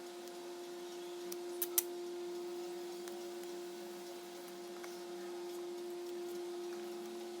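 Steady electrical hum, with two sharp clicks in quick succession a little under two seconds in.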